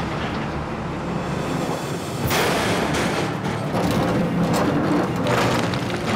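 Heavy diesel machinery running, with a sudden loud crash about two seconds in and further heavy thuds near the end, as an overturned articulated rock truck is rolled over and drops back onto its wheels.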